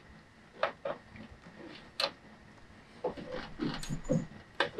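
A few scattered clicks and short scraping rustles, busier in the second half: hands fitting a heavy ground cable's ring terminal onto the stud on the back of a winch.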